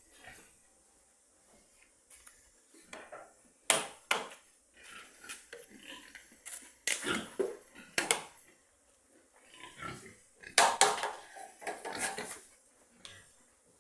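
Pigs vocalising in irregular bursts, a few loud calls among quieter ones.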